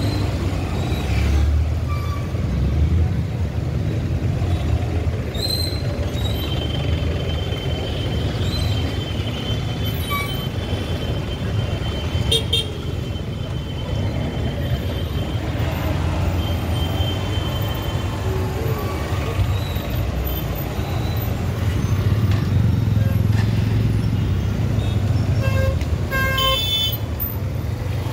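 Riding a motorcycle through city traffic: a steady low rumble of engines and road, with vehicle horns tooting now and then and a louder horn blast near the end.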